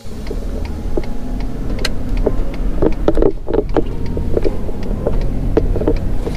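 Pickup truck driving with a trailer in tow: a steady low rumble of engine and road noise, with frequent short rattles and knocks over it.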